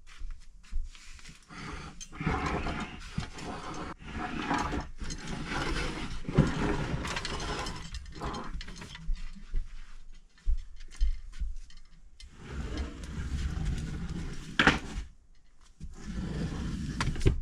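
Clothes racks being pulled out from a wall: irregular scraping and rattling with short pauses, and one sharp knock near the end.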